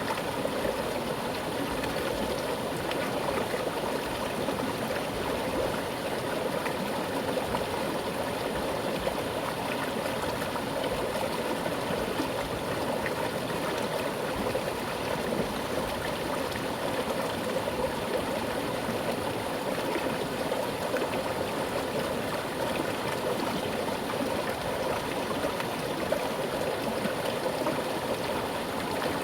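Mountain stream flowing with a strong current, a steady rushing and gurgling of water over rocks.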